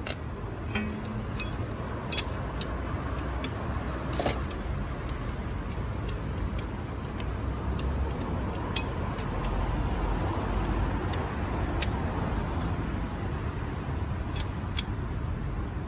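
Scattered light metallic clicks and clinks of tools and brake parts being handled, over a steady low background rumble.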